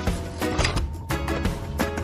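Background music with a steady beat and pitched notes.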